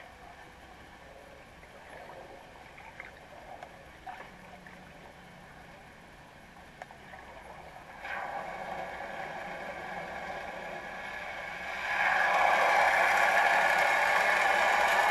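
Muffled underwater sound picked up through a waterproof camera housing: faint ticks at first, then a steady mechanical whir with held tones that comes in about 8 seconds in and steps much louder about 12 seconds in.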